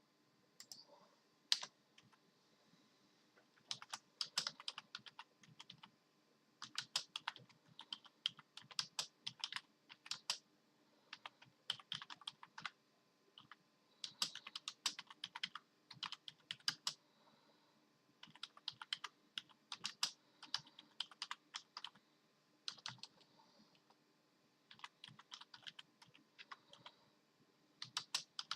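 Computer keyboard keys clicking in irregular runs of fast presses, each run lasting one to three seconds with short pauses between.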